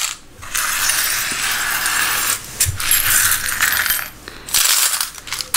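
Small iron album corner protectors clinking and rattling against each other as they are scooped up by hand and dropped into a plastic storage box, a steady jangle with a short break near the end.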